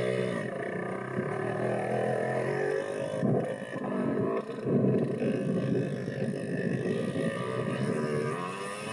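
Dirt bike engine running with a steady note, then revving harder and rougher from about three seconds in as the bike is ridden off.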